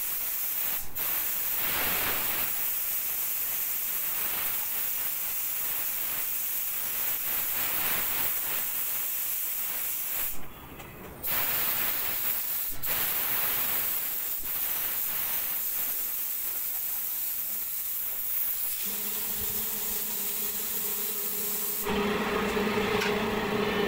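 Gravity-feed air spray gun hissing steadily as it sprays, cut off for about a second a little over ten seconds in when the trigger is let go. From about nineteen seconds a steady hum with a low tone comes in beneath the hiss and grows louder near the end.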